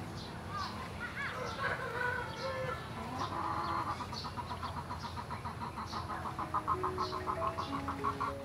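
Chickens clucking, with a fast, even run of clucks through the second half.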